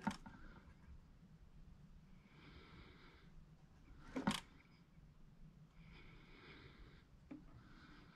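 Two sharp clicks, one right at the start and one about four seconds in, over a person's soft breathing, one breath about every three seconds.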